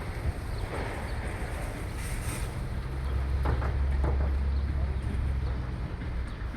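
Caterpillar excavator's diesel engine running with a steady low drone, which swells louder about three seconds in and eases back near the end.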